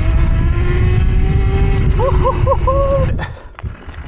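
Electric minibike riding through snow: a loud rumble of wind and road noise with a steady motor whine. About two seconds in come four short rising-and-falling whooping cries, and about three seconds in the rumble drops away sharply as the bike slows.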